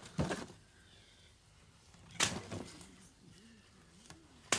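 A cardboard box being handled and torn open, with rustles and scrapes about a quarter second in and at about two seconds, and a sharp snap just before the end.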